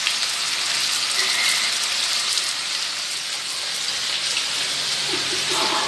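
Chicken pieces sizzling and crackling steadily in hot oil in a wok as they sear.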